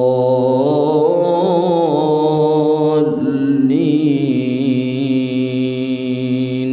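An imam's melodic Quran recitation in prayer: one unaccompanied male voice holding a long drawn-out sung vowel. The pitch wavers in ornaments around the middle, then is held steady until the note ends at the close.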